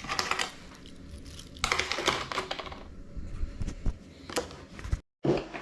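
Handling noise: three bursts of close clicking and rustling, the sound of small objects being moved about, with a brief total cut-out near the end.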